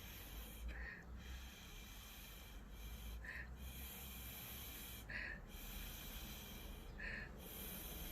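Four short, faint puffs of breath blown through a drinking straw onto wet acrylic paint, about two seconds apart, pushing the paint into new shapes.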